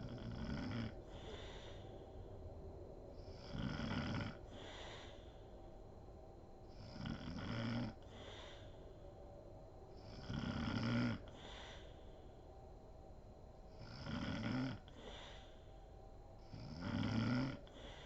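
A sleeping woman snoring steadily, six rasping snores about every three and a half seconds, each followed by a shorter breathy exhale.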